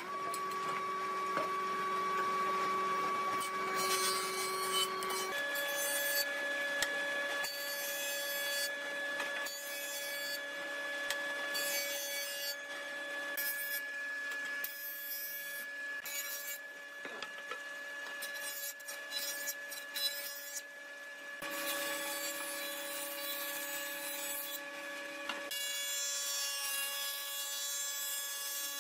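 Combination jointer-planer running, its motor giving a steady hum while the cutter head planes wooden boards with a hissing shave. The sound changes abruptly several times.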